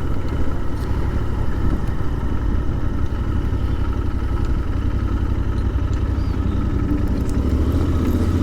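Royal Enfield Interceptor 650's parallel-twin engine running steadily at low revs, close to the microphone.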